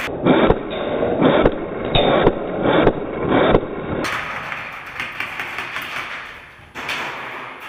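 Footsteps at a walking pace, about two thuds a second, mixed with rustling of clothing and gear; from about four seconds in the steps give way to a steadier rustling hiss.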